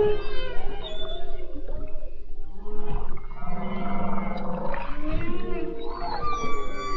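Background music of slow, drawn-out tones that glide up and down in pitch, with a high rising glide near the end.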